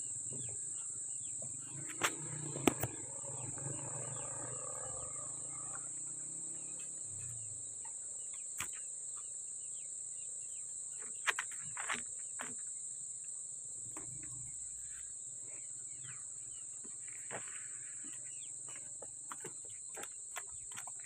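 Steady, high-pitched chorus of insects chirring without a break. A few sharp knocks stand out, twice about two seconds in and twice more about eleven seconds in.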